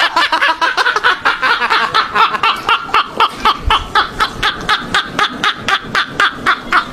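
Men laughing hard and without a break, a fast even run of short 'ha-ha' bursts, about six a second.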